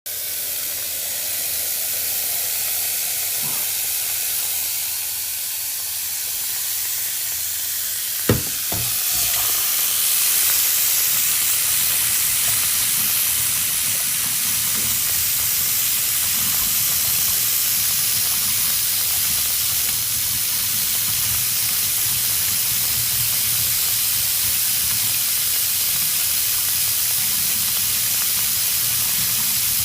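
Waterfall rushing: a steady hiss of falling water, with a single sharp knock about eight seconds in.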